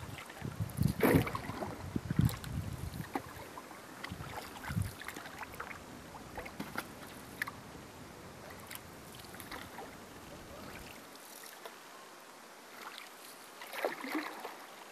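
Water sounds of a canoe under way: small drips and lapping at the hull, with gusts of wind rumbling on the microphone for the first few seconds and a swish of water near the end.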